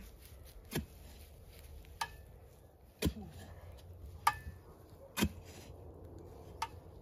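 A steel spade striking hard, compacted soil, six blows about a second apart, several with a short metallic ring as the blade hits the packed ground.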